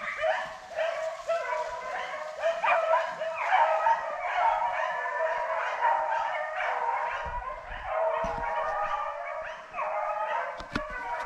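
Several hunting dogs baying and yelping without a break while running a rabbit, their calls overlapping, with a few low knocks near the end.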